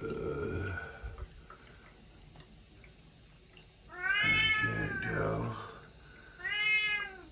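A cat meowing twice: a long meow that rises and falls about four seconds in, then a shorter one near the end.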